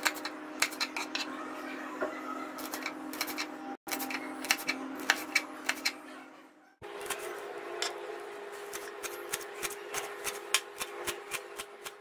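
Kitchen knife chopping on a cutting board: quick, irregular taps of the blade striking the board as green chillies are sliced, then, after a short break about two-thirds through, coriander leaves are chopped. A low steady hum runs underneath.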